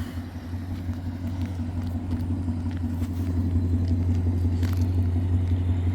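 2024 Mustang GT's 5.0 V8 idling steadily with a low, even rumble through long-tube headers, an H-pipe and a Roush axle-back exhaust.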